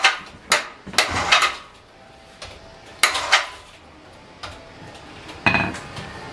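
Several sharp metallic clanks and knocks with brief ringing, from the heavy commercial water heater and its hoist rigging being handled after it is lowered.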